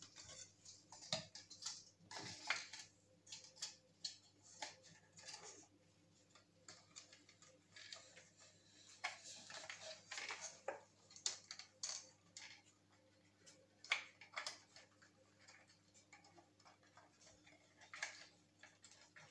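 Faint, scattered small clicks, taps and scrapes of hand work on the parts of a disassembled hair dryer being cleaned, over a faint steady hum.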